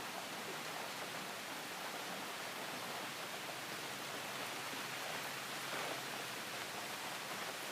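Soft, steady rain: an even hiss of rainfall.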